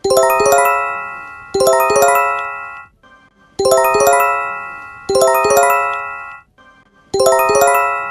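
Emergency alert chime: a bell-like electronic chord struck in a quick ripple, left to ring down, struck again about a second and a half later, then a short pause. The pattern repeats about every three and a half seconds.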